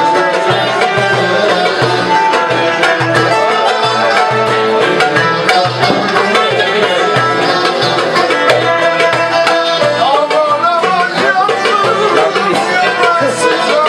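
Live Turkish folk music: two ouds and a kanun pluck the melody over a steady hand-drum rhythm.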